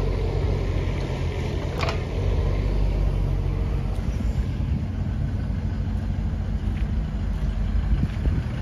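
Diesel engines running steadily, from the Doosan DX19 mini excavator at work and then the Iveco Daily tipper truck idling, with a sharp clank about two seconds in.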